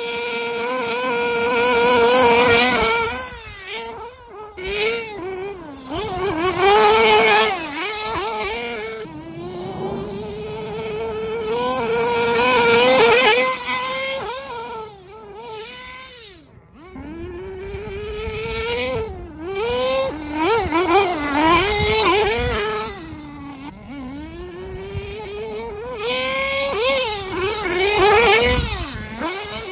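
The Tamiya Nitrage truggy's FR-32FX 5.2cc (.32) two-stroke nitro engine revving up and down as the car is driven. It makes a high buzz that rises and falls in pitch again and again and cuts back briefly several times when the throttle is let off.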